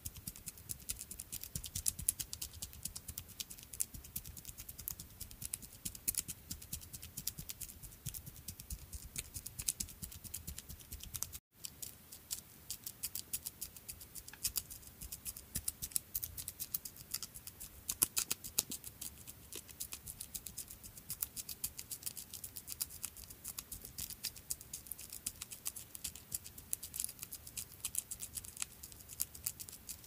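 Footsteps of a small creature: a fast, continuous patter of light ticks and scratches. It cuts out for an instant about eleven seconds in.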